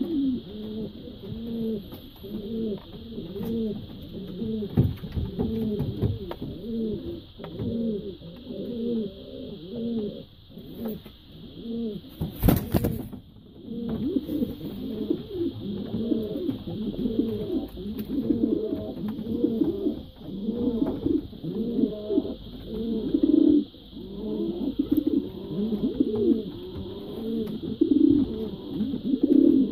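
Show racer pigeons cooing over and over, one coo after another with short gaps, over a steady high hiss. A brief loud burst of noise cuts through about twelve and a half seconds in.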